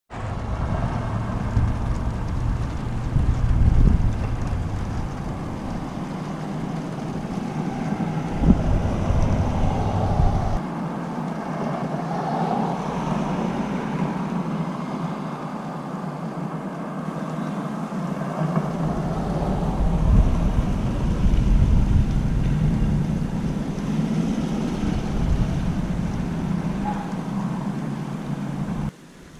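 Winter storm outdoors: steady gusty noise with deep low rumbles that swell and fade three times, and a sharp crack about eight and a half seconds in. The sound cuts off abruptly near the end.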